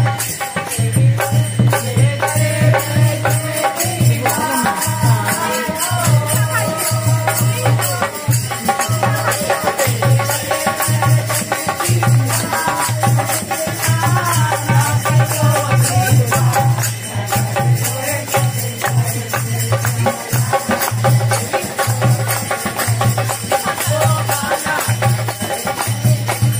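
Kirtan: devotional singing to a steady rhythm of hand percussion and rattling.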